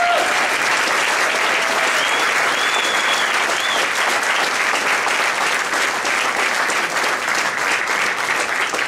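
Crowd applauding steadily, with a few cheers rising above the clapping about two to three seconds in.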